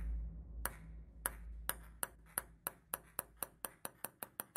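A table tennis ball bouncing on a hard surface, the clicks coming quicker and quicker as it settles toward rest. A low rumble fades away under the first few bounces.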